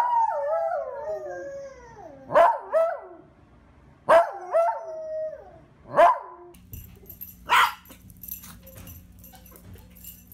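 Dog howling: one long howl that slides down in pitch, followed by several shorter howls. Near the end of the howling the sound changes to a low steady hum with faint clicks and one short sharp sound.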